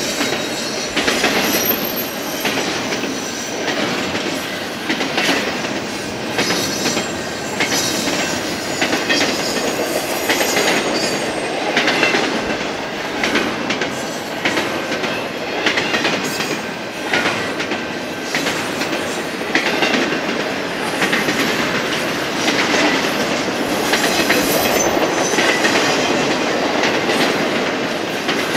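Double-stack intermodal freight cars rolling past: a steady rumble of steel wheels on rail, broken by repeated sharp clacks as wheel sets pass over rail joints.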